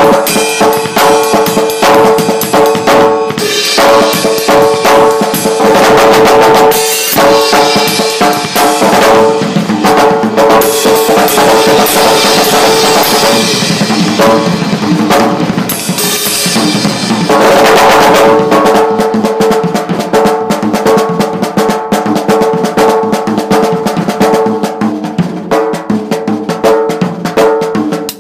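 Acoustic drum kit played hard and fast in a continuous fill-heavy groove, with rapid snare, bass drum and tom strikes and a steady ringing tone under the hits. Cymbal crashes wash over the playing several times.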